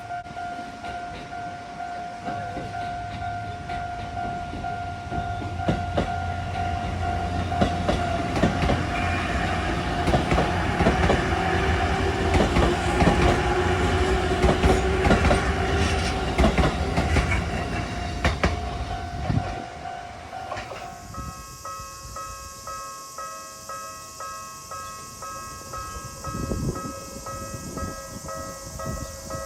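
Japanese railway-crossing alarm ringing with its repeating bell while an Izu Kyuko Line train passes. The train's rumble swells, with wheels clacking over the rail joints, then fades. About two-thirds of the way in, the bell changes abruptly to a different-pitched crossing alarm, which keeps ringing.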